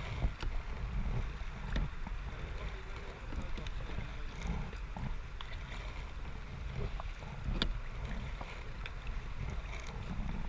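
Kayak on a river: water splashing and lapping around the boat and paddle, with a few small sharp knocks, over a constant low rumble.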